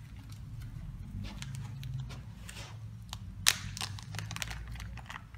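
Motorized Rockwell hardness tester running through its test cycle, holding the load and then starting to unload: a steady low motor hum with scattered light clicks from the mechanism, and one sharp click about three and a half seconds in.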